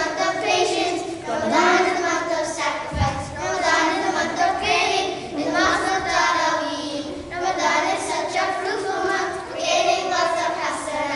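A group of children singing together in long melodic phrases. A single low thump sounds about three seconds in.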